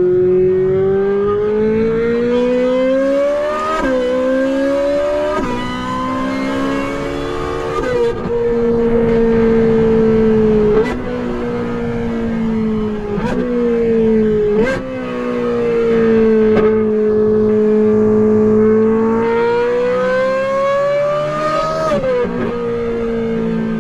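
Ferrari 458's flat-plane V8 with a Brilliant aftermarket exhaust, heard on board at full throttle. The engine note climbs and drops sharply at each upshift, about four and five seconds in and again near the end. Sharp cracks mark the gear changes in the middle.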